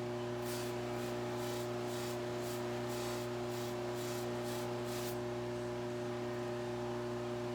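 Electric buffing wheel running with a steady hum, while a pipe is pressed against the cloth wheel charged with white diamond compound in short strokes, about two a second, each a brief hissing rub. The strokes stop about five seconds in while the motor keeps running.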